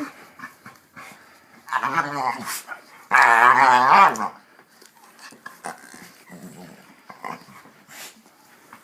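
Pit bull groaning while play-chomping: two drawn-out, wavering groans, the second louder and longer, then only soft scattered sounds for the rest.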